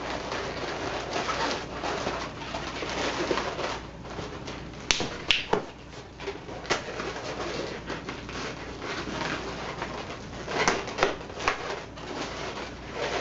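Latex twisting balloons rubbing and squeaking as they are twisted and handled, with several sharp clicks or snaps about five seconds in and again near the end.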